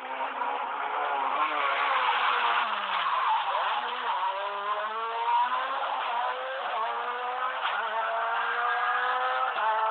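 Rally car engine at full revs as the car comes through. The pitch drops sharply about three seconds in as it brakes and passes, then climbs steadily as the car accelerates away.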